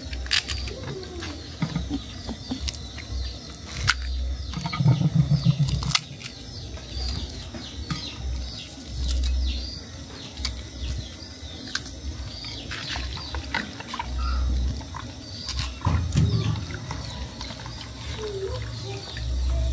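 Hands breaking pieces of dried fish and dropping them into a plastic bowl: irregular crackles and clicks, loudest about five seconds in, with small birds chirping in the background.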